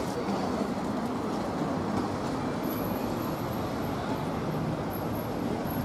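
Steady low rumble of city traffic, with a faint thin high whine coming and going in the second half.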